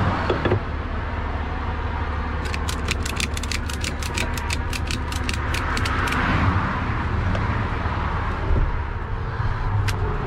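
Truck engine idling steadily, with a quick run of about two dozen sharp clicks a couple of seconds in as a belt or strap is worked around the steering wheel.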